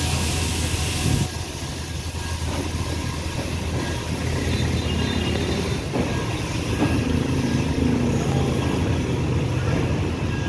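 Train running, heard from inside a coach: a steady rumble of wheels on the rails, with a high hiss that drops away about a second in.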